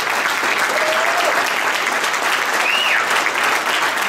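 An audience clapping steadily in a round of applause, with two brief pitched calls from the crowd, one about a second in and a higher, falling one near three seconds.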